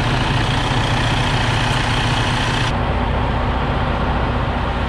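2020 Western Star semi truck's diesel engine idling steadily, running again after a no-start caused by a wiring fault. The sound changes abruptly about halfway through, the upper hiss dropping away as at an edit.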